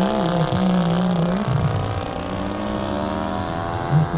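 Model airplane engine running steadily in flight, its pitch rising about two and a half seconds in, with a second lower drone wavering up and down beneath it.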